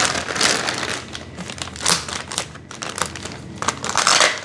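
Large clear plastic bag crinkling and rustling in irregular bursts as it is pulled up and off a heavy audio component.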